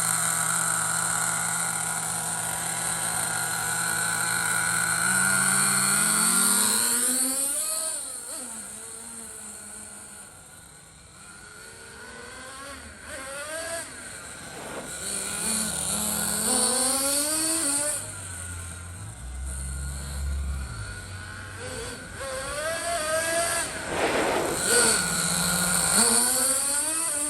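Kyosho GigaCrusher radio-control monster truck running at a steady pitch, then revving up over and over, each rising rev lasting a second or two.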